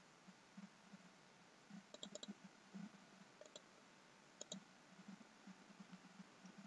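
Faint computer mouse clicks over near silence, mostly in quick pairs like double-clicks, a few times.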